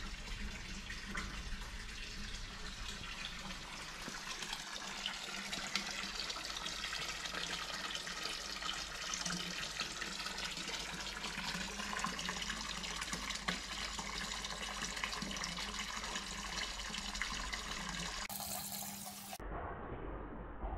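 Thin stream of water from a wall fountain's spout splashing steadily into a stone basin. Near the end it cuts abruptly to a duller background.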